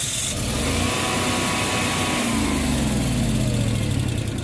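Early-generation Generac home standby generator engine running; about halfway through its pitch falls steadily as it slows down. It is shutting down on an overspeed fault.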